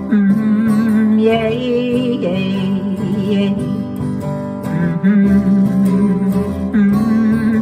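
Instrumental break in an upbeat rock-and-roll song: strummed acoustic guitar with a sustained, wavering melody line over it.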